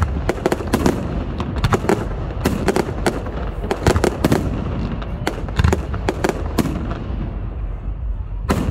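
Fireworks display: a rapid, irregular run of bangs and crackles from aerial shells bursting overhead. The reports come thick and fast for the first four seconds or so, then thin out to scattered bangs.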